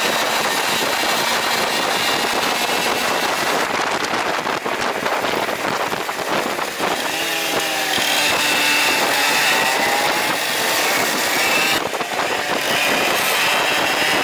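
Mopeds riding, their small engines buzzing and rising and falling in pitch as they rev, under heavy wind-like noise. The sound changes abruptly twice.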